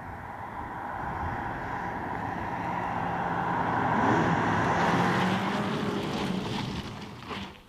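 A car going past at speed: a rushing sound with a steady hum builds for about four seconds, then fades as the car draws away, and cuts off abruptly near the end.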